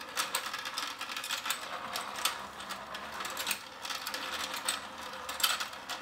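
Battery-powered Let's Go Fishing game running: its motor and plastic gears turn the spinning pond tray with a steady hum and a rapid, uneven clicking and rattling.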